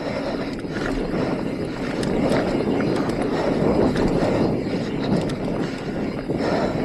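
Mountain bike descending a dirt and rock trail at speed: a steady rush of tyre noise over the ground and wind on the microphone, with scattered small clicks and rattles from the bike.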